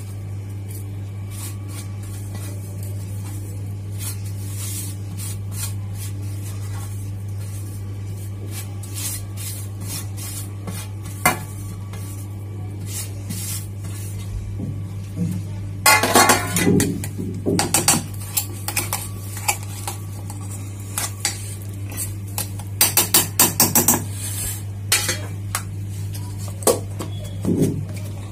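A steel spoon scraping and clinking against a stainless-steel mixer-grinder jar, with the jar's plastic lid fitted on. The clatter comes in short clusters about halfway through and again near the end, over a steady low hum.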